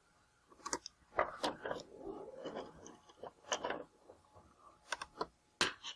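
Hands handling laptop screen parts: a series of sharp plastic clicks and taps, with rustling and scraping from about one to four seconds in.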